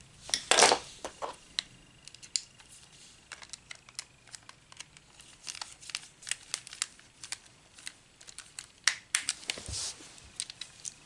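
Plastic parts of an Xbox Elite controller being handled and fitted back together: scattered sharp clicks and taps, with a louder rustling scrape about half a second in and another near the end.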